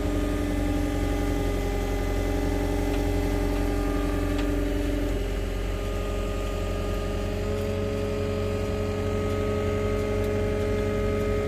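Skid-steer loader's engine running steadily close by, with several held whining tones over a low hum, while it lifts an old car on its forks.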